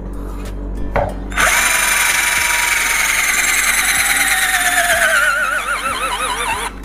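INGCO CDLI1211 12V cordless drill boring into a wall, after a brief trigger blip about a second in. Its motor whine falls steadily in pitch as it bogs down under load, wavers near the end, then stops. The small 12 V drill is straining hard and drawing heavy battery power.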